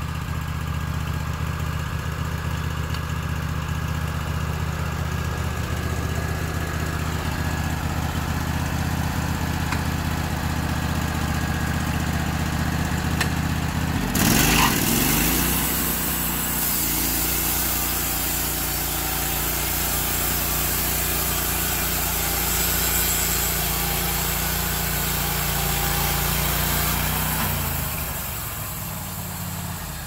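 Wood-Mizer LT15GO sawmill's Kohler engine idling. About halfway through it revs up and the band blade cuts through the log with a steady hiss over the engine, and near the end the engine drops back down.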